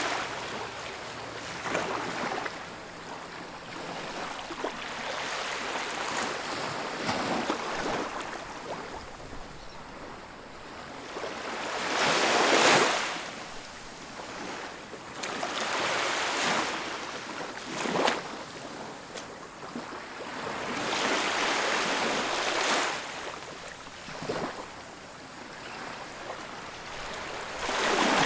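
Ocean waves breaking on a beach, with repeated surges of surf every few seconds; the biggest wave crashes just under halfway through.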